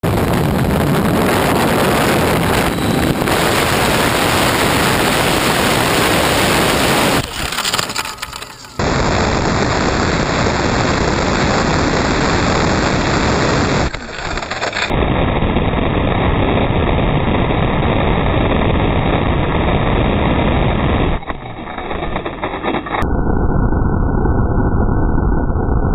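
RC model jet's twin ducted fans running at full power with a rush of air, heard from a camera on the airframe, falling away as it crashes into grass about seven seconds in. The same sound then repeats three times slowed down, deeper and duller each time, the last at one-tenth speed.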